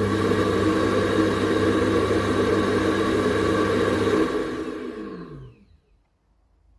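Ecovacs Deebot T80 Omni's suction motor running at full power with a steady whirring hum, then winding down with a falling pitch and stopping about five seconds in.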